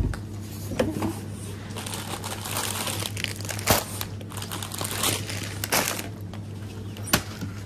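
Crinkling and rustling of handled plastic, with a few sharp clicks and knocks, over a steady low hum.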